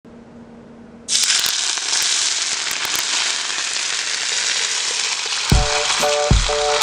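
Hot oil sizzling and crackling over chopped chillies and garlic on a steamed sea bass, starting suddenly about a second in. Music with a steady beat comes in near the end.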